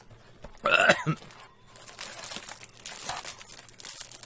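A short non-word vocal sound about a second in, followed by crinkling and rustling of snack packaging being handled.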